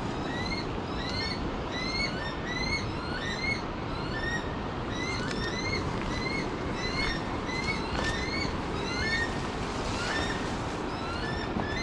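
Weka calling: a long run of shrill, rising whistled notes, one or two a second, over a steady background hiss.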